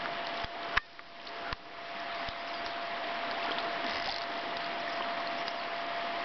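Steady rushing of a river current over a shallow, rippling run, with a few sharp clicks in the first two seconds and a thin steady hum underneath that fades out about four seconds in.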